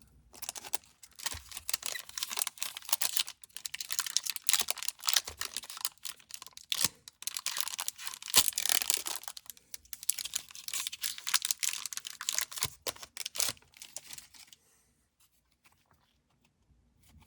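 A trading-card pack's wrapper torn open and crinkling, with rustling and handling of the cards, for about fourteen seconds; then it goes quiet.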